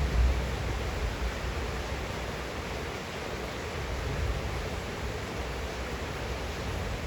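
Steady heavy rain falling, an even hiss, with a low rumble that swells near the start and again near the end.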